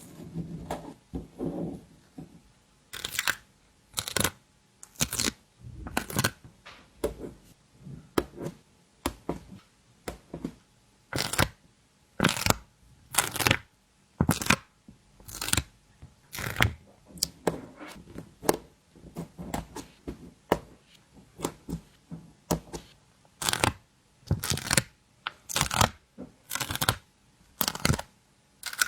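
Stickers being peeled off a backing sheet and handled: a long series of short peeling and rustling sounds, about one a second.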